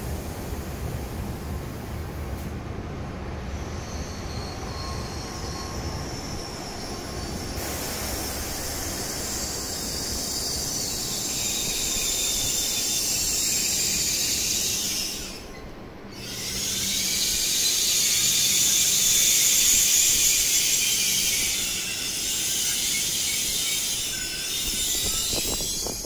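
N700-series Shinkansen trains moving slowly along the station tracks: a low rumble with a high hiss that builds over the first half. It breaks off briefly about halfway through, then a train running close by is louder.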